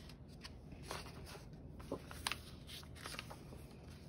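Faint rustle of paper as the pages of a paperback picture book are turned and smoothed flat by hand, with a few light ticks.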